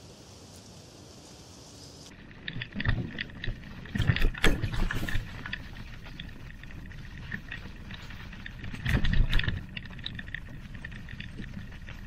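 Steady quiet forest ambience for about two seconds, then a bicycle riding a leaf-covered forest trail, recorded from the bike: rolling tyre noise with irregular rattles, clicks and thuds as it goes over bumps, and loud low thumps around three, four to five, and nine seconds in.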